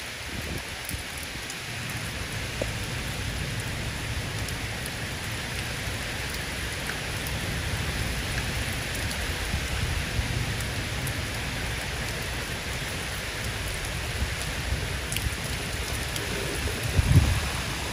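Heavy rain falling steadily in strong wind, with an uneven low rumble of gusts underneath. A brief, louder low rumble comes near the end.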